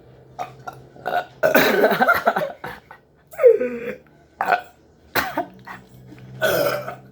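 A person burping several times, one long burp falling in pitch about three and a half seconds in: the gas of a whole can of carbonated Diet Pepsi, drunk down without burping, coming back up.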